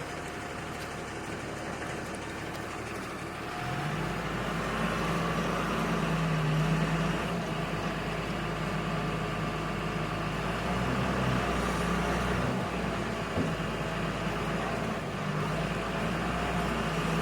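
An engine running steadily, a low hum that comes in and gets louder about four seconds in, over a steady background hiss.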